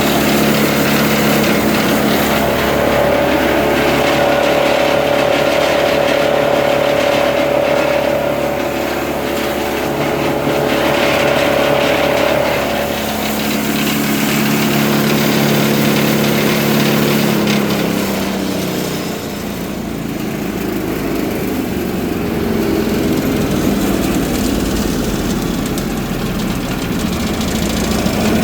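Vermeer BC1000XL wood chipper's diesel engine running at high throttle with the clutch engaged and the cutter drum spinning empty. About two-thirds of the way through, its pitch drops and the level dips as the engine slows.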